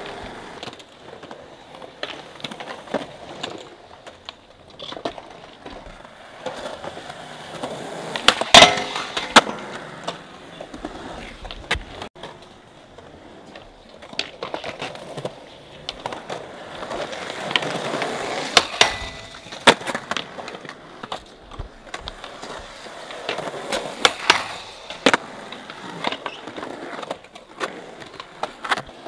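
Skateboard wheels rolling on concrete in several swelling passes, with repeated sharp clacks of tail pops, landings and boards hitting the ground. The loudest crack comes about eight and a half seconds in.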